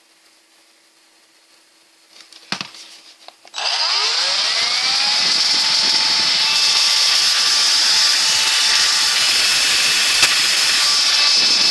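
Electrolux ZB2934 cordless stick vacuum, running on its newly refilled 12 V battery pack: a few handling clicks, then the motor is switched on, whines up to speed and runs steadily with a loud airy hiss.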